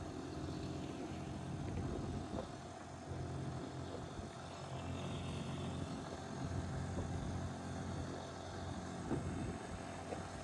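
Engine of a loader rickshaw running steadily as it drives along a road, heard from its open cargo bed over a steady rush of road noise.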